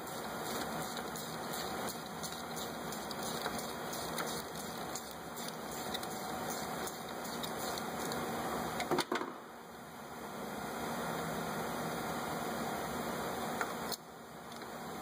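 Ratchet and spark plug socket turning a spark plug loose, the ratchet clicking as it swings back and forth, over a steady background hiss. A louder clatter of clicks comes about nine seconds in, after which it goes quieter.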